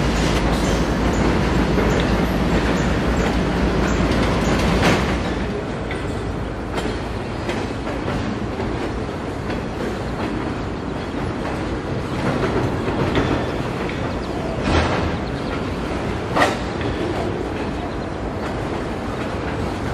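Loaded freight cars of a train rolling past on the rails: a steady rumble and wheel clatter, heavier for the first five seconds, with a few sharp clanks near five, fifteen and sixteen and a half seconds in.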